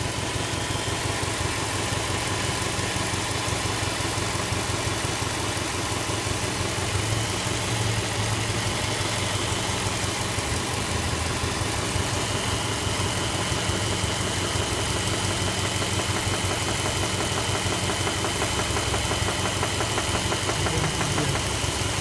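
Subaru EJ208 twin-turbo flat-four engine idling with a rapid, even knock from inside the engine, the fault the owner is recording. A faint high whine comes in about halfway through.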